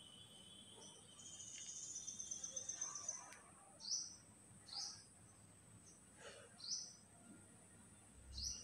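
Faint bird calls: a rapid trill of high notes lasting about two seconds, then four short, high chirps that slide downward, a second or two apart.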